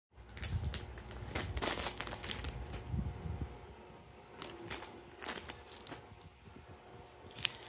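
A shiny potato chip bag crinkling and crackling in irregular bursts as it is handled and waved about, with a few dull bumps of the phone being moved.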